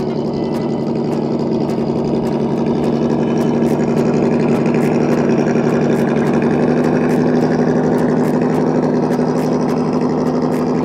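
Double E E101-003 RC crawler's brushed electric motor (Holmes Hobbies Trailmaster 550) and geared drivetrain running steadily as the truck crawls over grass, a little louder about four seconds in.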